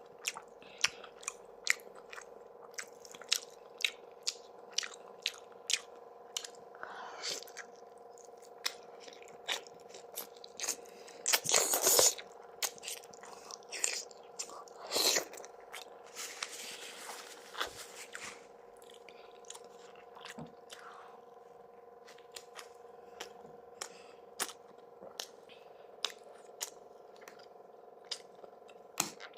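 Close-miked mukbang eating of sarmale with sour cream, bread and hot peppers: chewing with many short wet mouth clicks, and a few louder crunching bites a little before the middle and just after it.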